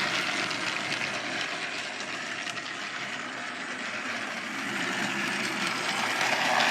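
Battery-powered Trackmaster toy engine running on its trial run: a steady whirring of its small motor and gears, growing louder near the end.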